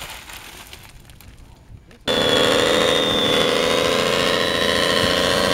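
Radio-controlled scale model truck running as it climbs over rocks: an engine-like drone with a steady high whine. It starts abruptly about two seconds in, after a quiet stretch with faint ticks.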